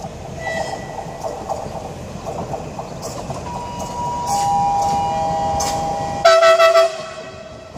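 PKP Intercity ED160 (Stadler FLIRT) electric multiple unit arriving at a platform, its running noise building. From about three and a half seconds in come steady whining tones, first one and then two lower ones. About six seconds in, a short loud horn blast of roughly half a second is the loudest sound.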